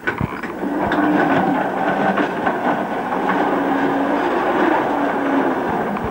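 1:16-scale model of a Sydney O-Class tram running along its track: a steady rumble of wheels on the rails with scattered clicks and a low wavering hum, getting louder about a second in.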